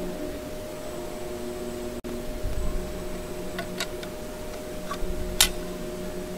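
Handling noise from a bare transceiver circuit board and its aluminium case: a few sharp clicks and soft knocks, the loudest a little past five seconds in, over a steady low hum.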